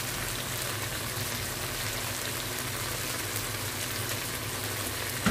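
Okra masala cooking in a pot on the stove, giving a steady, even sizzling hiss, with a low hum underneath.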